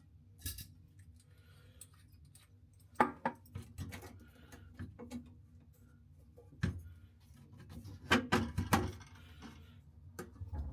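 Scattered clicks, knocks and clatter of hard objects being handled, with louder knocks about three seconds in, again near seven seconds, and a quick run of them around eight to nine seconds.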